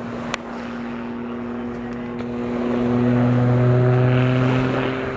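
CAP 231 aerobatic plane's 300-horsepower piston engine and propeller droning steadily as it climbs. The drone swells louder about halfway through and eases slightly near the end.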